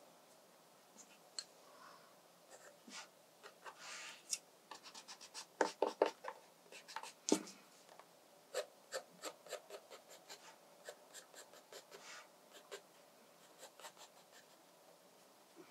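Graphite pencil drawing on sketchbook paper: faint, irregular runs of short scratchy strokes.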